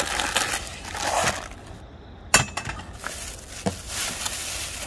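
Plastic bags and wrappings crinkling while drink cans and a plastic bottle are handled and clink together, with a couple of sharp knocks, the loudest about halfway through.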